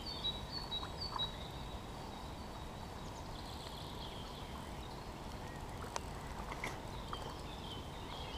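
Songbirds chirping in short repeated high notes, on and off, over a steady low background rush. A single faint click comes about six seconds in.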